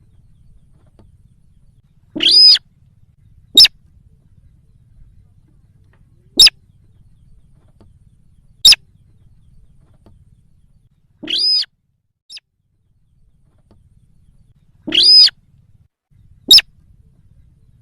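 Sintar rail lure calls: short, sharp single calls every two to three seconds, with three longer, drawn-out calls in between.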